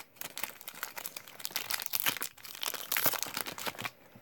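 Foil wrapper of a Pokémon trading card booster pack crinkling and crackling as it is torn open by hand and the cards are pulled out; the crinkling stops shortly before the end.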